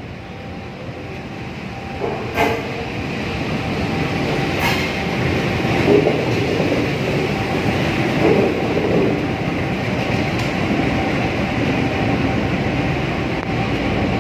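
CC 201 diesel-electric locomotive rolling slowly past close by, its diesel engine running steadily and growing louder over the first few seconds as it draws alongside. Two sharp clicks come about two and a half and just under five seconds in.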